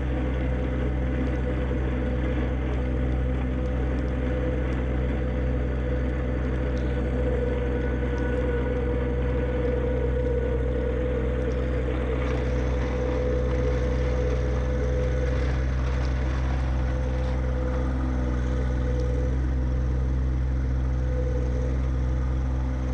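John Deere 1025R subcompact tractor's three-cylinder diesel engine running steadily as it plows snow, with a steady whine over the engine note.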